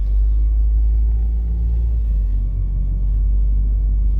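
Steady low rumble of a van driving along the road, engine and road noise heard from inside the cabin.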